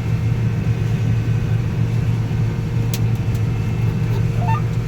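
Combine harvester running steadily while cutting soybeans, heard from inside the cab: a constant low engine and machinery drone with a steady higher tone over it, and a couple of faint clicks about three seconds in.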